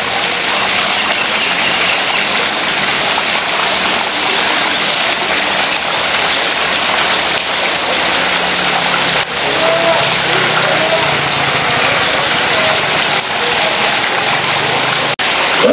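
Male lion roaring, its low calls faint under a steady loud rushing noise that fills the background.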